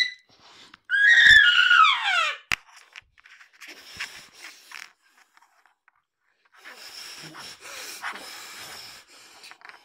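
A high-pitched wordless squealing cry about a second in that falls in pitch as it dies away, then, near the end, soft crackly squelching of slime being squeezed and kneaded by hand.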